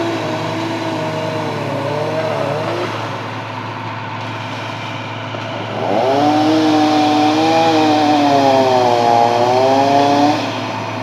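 A small engine running at high revs, its pitch wavering up and down, in two spells: one at the start lasting a few seconds and a longer, louder one from about halfway through. A steady low hum runs underneath.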